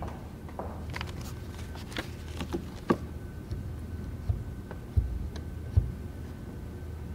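Scattered clicks and knocks as the drawknob stops of a Casavant pipe organ console are pulled, over a steady low hum. Three dull thumps about a second apart come in the second half.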